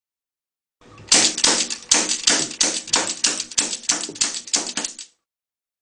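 Kazkin Silver Wolf full-metal rubber band pistol's mechanism clicking: a quick run of about fourteen sharp metallic snaps, roughly three a second, starting about a second in and stopping about a second before the end.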